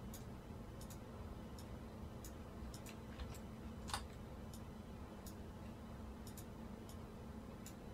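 Faint, irregular computer mouse clicks, with one sharper click about four seconds in, over a low steady hum.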